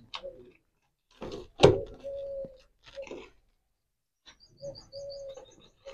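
Knocks and scrapes of a tool and hands working at broken cement and stones around a snake's burrow, with one loud thunk about one and a half seconds in. A dove cooing in the background, and a quick run of high bird chirps near the end.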